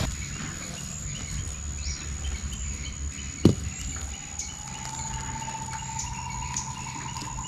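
Outdoor ambience of birds chirping over a steady high insect whine, with one sharp click a few seconds in and a faint trilling note that starts about halfway and rises slightly.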